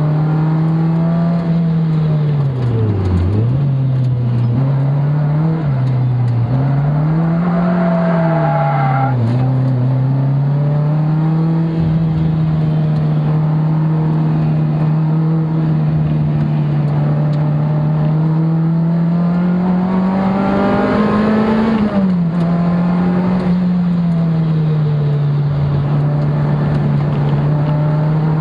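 Sports car engine heard from inside the cabin while lapping a race circuit. Its note falls and rises several times through the corners early on, holds steady along a straight, then climbs and drops sharply about 22 seconds in, as at a gear change.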